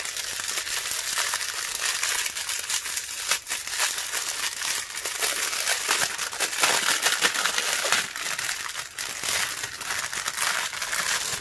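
Small plastic bags of diamond painting drills crinkling steadily as they are handled and sorted, a continuous dense crackle of plastic.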